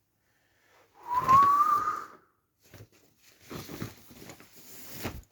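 A person's short, slightly breathy whistle, one note of about a second that rises a little in pitch, about a second in. Softer scuffling sounds follow near the end.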